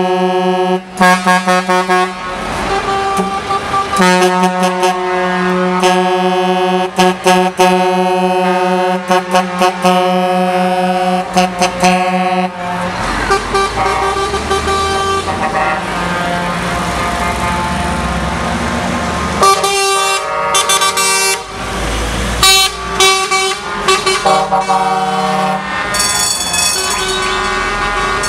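Truck air horns blowing as lorry tractor units pass: long chord-like blasts and short repeated toots for the first half, then a stretch of engine and road noise, then the horns start up again.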